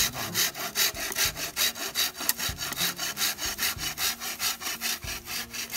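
Hand saw cutting through a green wild Sang bamboo culm in quick, even back-and-forth strokes, about four a second.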